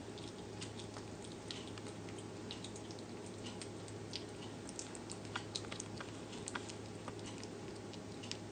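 A slow loris chewing a small piece of food, with quick irregular crunching clicks over a steady low hum.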